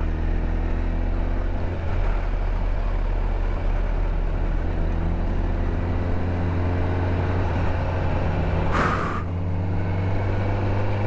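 Sport motorcycle engine running at low, steady road speed, its pitch shifting only slightly, over wind noise on the rider's camera. A brief burst of hiss comes about nine seconds in.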